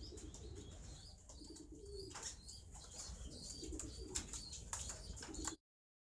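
Jawa sungut pigeons cooing in a wire-mesh cage: several short, low, rolling coos, with high chirps and a few light clicks in between. The sound cuts off suddenly near the end.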